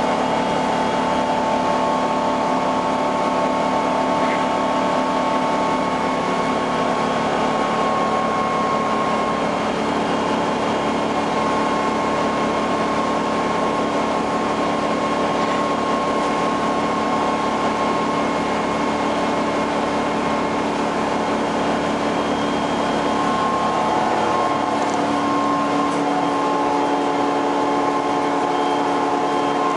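Detroit Diesel 6V71N two-stroke V6 diesel of a 1980 GM New Look transit bus running steadily at highway speed, heard from inside the passenger cabin, with a steady whine over road noise. The engine note shifts slightly about 24 seconds in.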